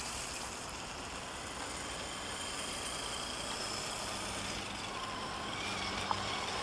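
Steady outdoor background noise: an even low rumble and hiss, with faint high whining tones during the first few seconds.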